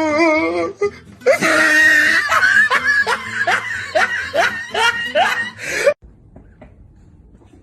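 A person laughing hard in a long run of rhythmic rising bursts, cut off abruptly about six seconds in. Just before it, a brief wavering vocal sound.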